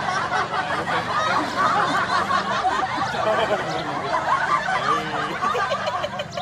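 Several young men laughing and snickering together without a break; the laughter cuts off suddenly near the end.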